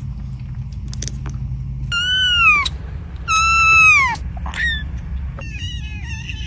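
Kittens meowing: two long, high mews that drop in pitch at the end, about two and three and a half seconds in, then a short mew and several overlapping higher mews near the end.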